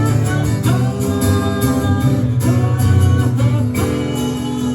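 Live band playing an instrumental passage between sung lines, with guitar prominent.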